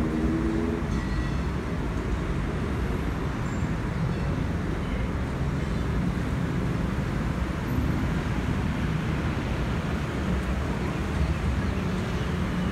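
Steady low rumble of an Airbus A320-216's two CFM56 turbofan engines, heard from the airliner flying high overhead.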